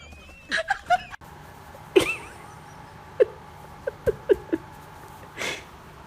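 Short cat sounds: a sharp noise about two seconds in, then a quick run of five or six tiny squeaks, and a brief puff of noise near the end.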